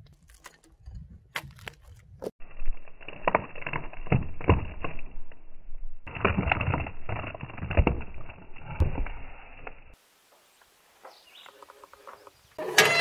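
A hatchet chopping into a log, knocking off bark and branch stubs in a quick, uneven series of strikes. Right at the end a chainsaw engine starts up.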